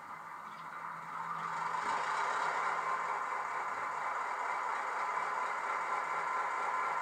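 Diesel engine sound of an Australian T class locomotive, played by a Loksound 5 DCC decoder through a tiny sealed sugar-cube speaker in the model. It has little bass, grows louder about one and a half seconds in, then runs steadily.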